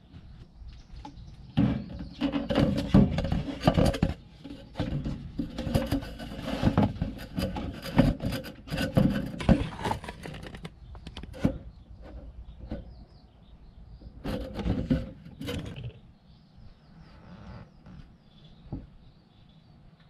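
Corrugated plastic heater duct hose being pushed and worked into a wooden cabinet: irregular rubbing and scraping with knocks against the wood. It is busiest in the first half, comes back in a short burst about fifteen seconds in, then eases off.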